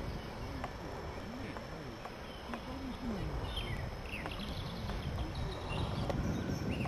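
Low wind rumble on the microphone, with birds chirping a few times in the middle.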